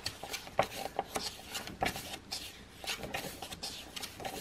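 Glossy pages of an album photo book being turned and handled: paper rustling and hands brushing over the pages in short, irregular strokes.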